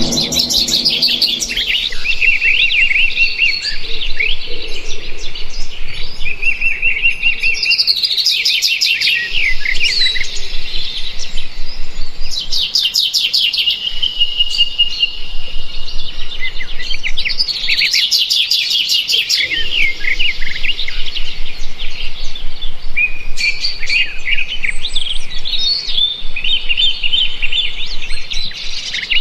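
Birds chirping and singing without pause, many short high calls overlapping, with fast trills breaking in every few seconds.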